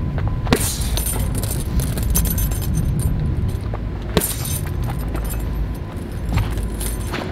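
Right-cross punches landing on a filled heavy punch bag, with the bag's steel hanging chain jangling after each hit. A steady low rumble runs underneath.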